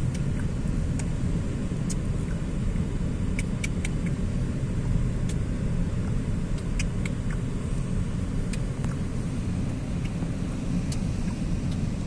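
Car cabin noise while driving in slow city traffic: a steady low rumble of engine and tyres, with a few faint, sharp clicks here and there.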